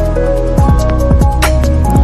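Background music with a steady electronic beat: held synth notes, falling bass sweeps and sharp drum hits.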